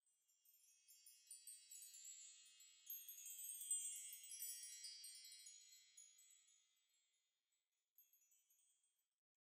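Faint high tinkling of chimes, many small tones overlapping, swelling towards the middle and dying away about two-thirds of the way through.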